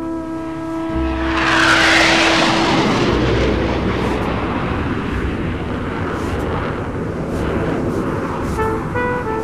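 A vehicle passing, its noise swelling to a peak about two seconds in and then settling into a steady street rumble. The last held note of a brass jazz score fades under it, and the music comes back near the end.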